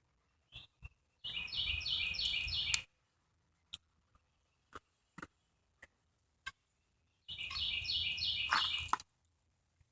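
A horse whinnying twice, each call a quavering string of high pulses lasting about a second and a half, with a few light clicks between the calls.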